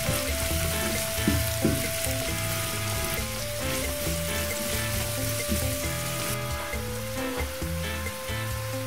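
Food frying with a steady sizzle.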